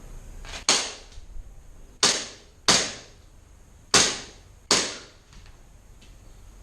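Five single airsoft gun shots, fired at an uneven pace. Each is a sharp crack with a short fading tail.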